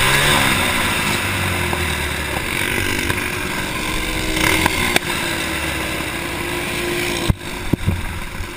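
Stock four-stroke racing kart engine, heard from on board, falling in pitch as it comes off the throttle and then running slowly. It cuts off suddenly about seven seconds in, leaving a few knocks and rattles.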